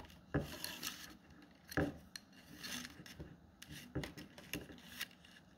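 Thin rattan strips being pulled and slid through a weave wrapped around a bamboo tube, scraping and rubbing against the bamboo and each other, with a few sharp clicks as the strands snap into place.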